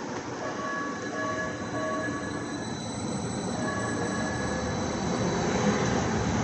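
Calgary CTrain light-rail train running past the platform, its rumbling rail noise building steadily, with a thin high squeal from the wheels. A run of short, evenly spaced pitched beeps sounds in the first few seconds and once more near the middle.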